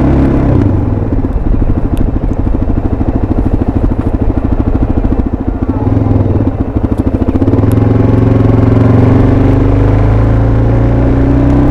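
Suzuki DR-Z400SM's single-cylinder four-stroke engine on the move: off the throttle for the first several seconds, its separate firing pulses plainly heard, then back on the throttle about seven or eight seconds in, the note steadying and slowly rising as it pulls.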